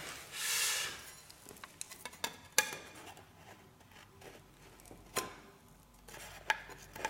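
Metal filling knife smoothing a fresh sealant bead along a floor threshold bar: a short scrape about half a second in, then scattered light clicks and taps of the blade.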